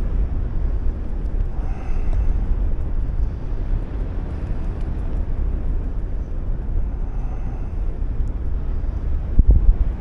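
Wind rushing over the microphone of a paraglider in flight: a steady low rumble with a stronger gust near the end.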